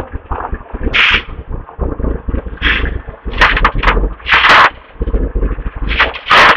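Wind buffeting a phone microphone in loud, irregular gusts and pops over a heavy rumble.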